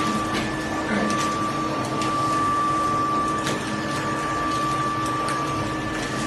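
TUPO8 automatic wall rendering machine running as its carriage travels along the mast: a steady high electric motor whine over a rough, noisy mechanical background, with a few clicks.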